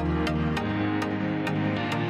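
Electronic background music with a steady beat over sustained synth chords and a bass line.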